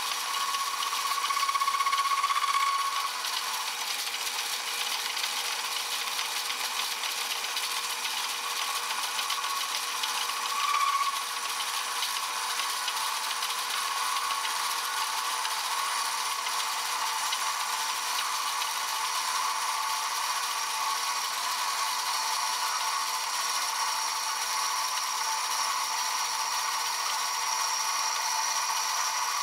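Metal lathe running while a boring bar cuts the bore of a steam engine cylinder casting, with a steady high whine. The whine swells louder about a second in for a couple of seconds, and again briefly about ten seconds in.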